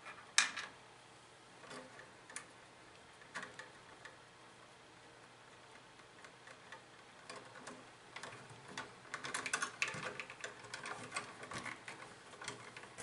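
Insulated electrical wires being handled and worked into a plastic electrical box: light clicks and crackling rustles, with one sharp click about half a second in and a busier run of small clicks from about eight seconds in.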